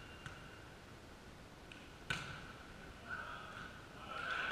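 A volleyball struck once, a single sharp smack about two seconds in that rings briefly in the sports hall.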